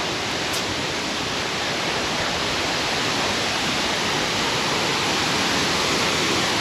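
Waterfall running high after rainfall: a steady rushing of water that grows slightly louder.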